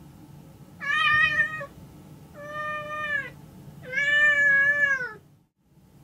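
Domestic cat meowing three times, long drawn-out calls of about a second each; the last is the longest and loudest.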